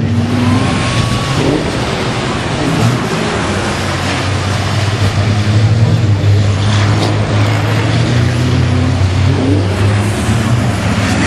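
Fórmula Truck racing trucks' turbodiesel engines running at speed: a loud, dense noise over a steady low drone.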